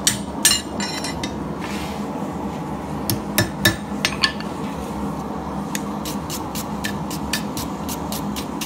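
Hand hammer striking a steel punch held on red-hot steel on an anvil: a few sharp blows in the first second, then four spaced blows about three to four seconds in. In the second half, a fast even run of light ticks, about four a second, over a steady low hum.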